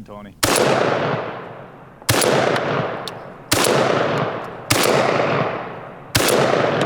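A 12-gauge shotgun fired five times in quick succession, about one and a half seconds apart, each report trailing off in a long echo.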